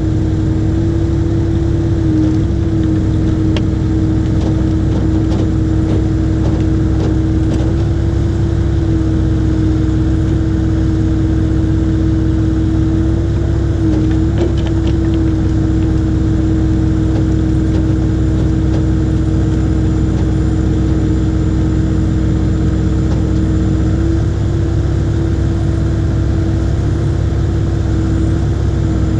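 IHI 80NX excavator's diesel engine running steadily at a constant speed, with a strong even hum.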